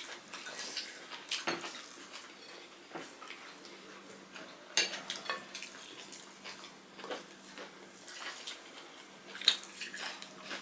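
Eating with the hands from ceramic plates: fingers mixing rice and curry, with scattered small clicks and taps against the plates. The clearest taps come about a second and a half in, around five seconds in, and near the end.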